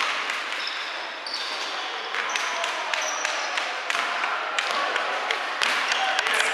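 Basketball game in a gym: the ball bouncing on the court in repeated sharp knocks, with short high sneaker squeaks.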